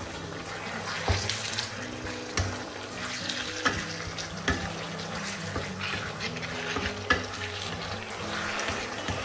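Diced pork sizzling in oil in a non-stick frying pan as a wooden slotted spatula stirs it, with about five sharp clicks of the spatula knocking against the pan.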